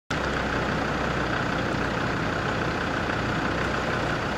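Steady rush of river water flowing around a vehicle stuck midstream, over a low steady hum.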